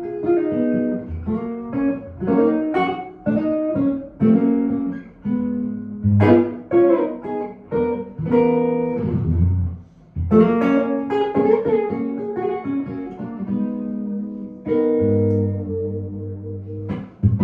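1955 Gibson ES-295 hollowbody archtop electric guitar with P-90 pickups, played unaccompanied: a phrase of picked single notes and chords with short breaks, then a chord left ringing for a couple of seconds near the end.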